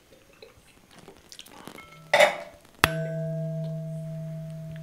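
A single sharp metallic strike, a little under three seconds in, that rings on as a low, bell-like tone of several pitches and fades slowly. A brief hiss comes just before it.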